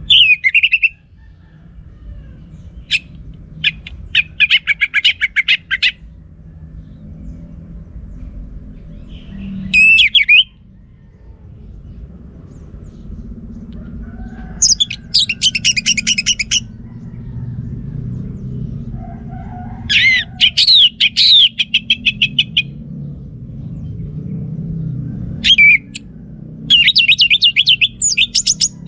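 Orange-headed thrush singing: loud phrases of rapid, sweeping high notes and fast trills, separated by pauses of a few seconds, over a low steady background hum.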